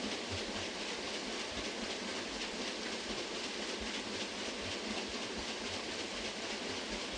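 A water mill's water wheel turning: a steady rush of falling, splashing water, with irregular low knocks and clatter from the turning wheel.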